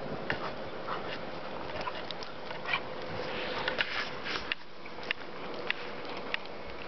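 Airedale terriers play-wrestling in snow, snuffling and mouthing at each other, with a scatter of short sharp clicks and a denser spell of scuffling about three to four seconds in.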